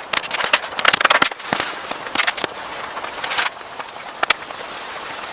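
A rapid, irregular run of sharp cracks and pops, densest in the first two and a half seconds and thinning out after about three and a half seconds.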